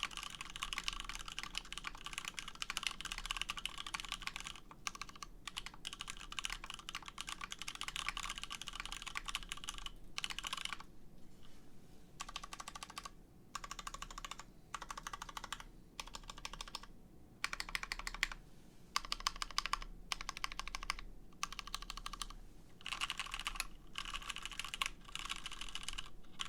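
Mechanical keyboard typing on a KFE CE with lubed retooled Cherry MX Black linear switches, an aluminium full plate and case foam. The keys are typed continuously and quickly for about ten seconds, then in short bursts separated by brief pauses.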